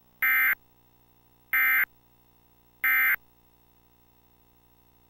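Emergency Alert System end-of-message data bursts: three short bursts of warbling digital tones about a second and a quarter apart, signalling the end of the alert.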